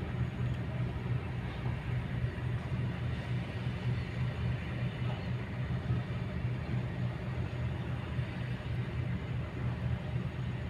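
Kobelco excavator's diesel engine running steadily, a low even drone that holds the same pace throughout.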